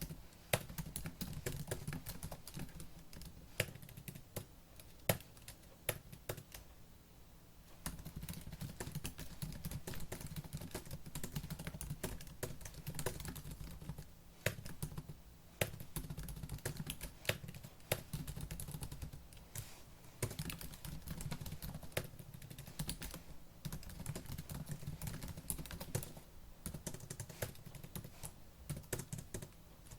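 Fast typing on a laptop keyboard: quick runs of key clicks, broken by short pauses about 7 seconds in and again near 14, 20 and 26 seconds.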